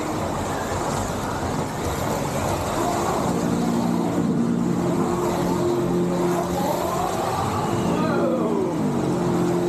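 Slot cars running on a multi-lane raceway track. Their small electric motors whine over a steady mechanical rattle, and one whine rises and then falls in pitch about two-thirds of the way in as a car speeds up and then brakes.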